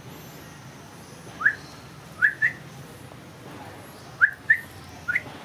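Baby long-tailed macaque squeaking: seven short, rising, whistle-like chirps, one alone and then three quick pairs.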